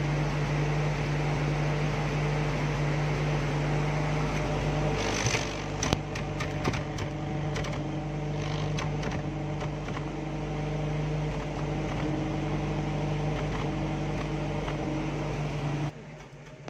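Cold petrol engine idling, heard close at its exhaust pipe: a steady low hum, with a few clicks about five to seven seconds in. It has a flapping note that the owner puts down to a leak somewhere in the silencer. The sound drops sharply just before the end.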